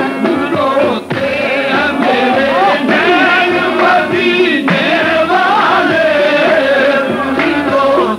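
Qawwali music: a male voice sings a wavering, ornamented melodic line over the group's instrumental accompaniment.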